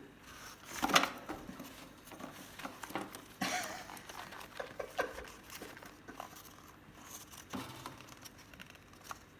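Cardboard toilet-paper rolls rustling, crinkling and knocking as a peach-faced lovebird plays with them, in irregular short bursts; a sharper knock about a second in.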